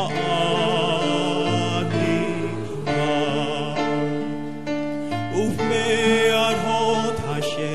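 A large mixed choir of school students singing, holding long chords that change every second or two.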